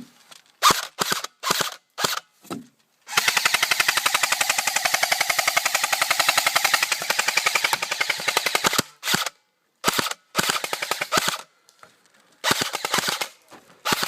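Airsoft guns firing: scattered single shots and short bursts, then a long fully automatic burst of about five and a half seconds starting about three seconds in, followed by more short bursts.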